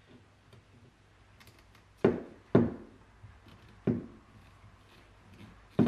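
Four sharp knocks of a fuel rail and injectors against a wooden workbench as the injectors are seated into the rail: two half a second apart about two seconds in, another near four seconds, and one at the very end, with faint handling clicks between.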